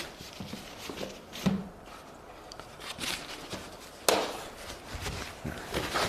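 A few scattered knocks and clatters of painting tools being handled, with the sharpest, loudest knock about four seconds in.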